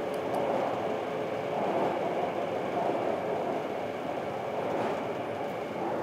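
Taipei Metro train running at speed through a tunnel: a steady dense rush of wheel and running noise on the rails.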